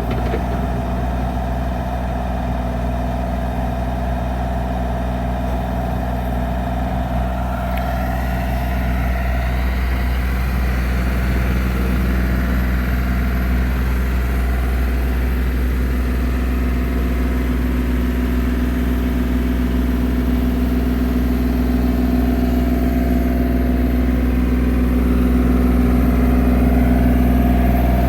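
Diesel engine of a Bobcat E32 mini excavator running steadily, its sound shifting about eight seconds in and growing slightly louder toward the end.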